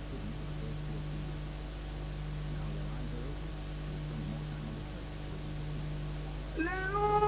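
Steady electrical mains hum with hiss on the recording, and faint indistinct voices underneath. Near the end the qawwali music comes back in with a note that rises and then holds.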